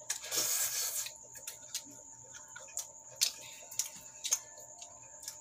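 Eating sounds: a short rustle in the first second, then scattered soft clicks of chewing and handling food.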